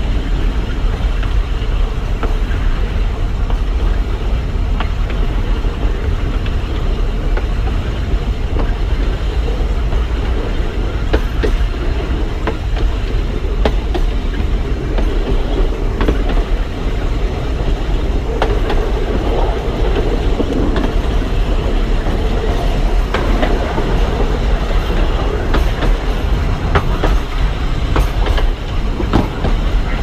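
Narrow-gauge forest railway train hauled by a DL-41 diesel locomotive, running steadily with a constant low rumble and irregular clicks of the wheels on the track.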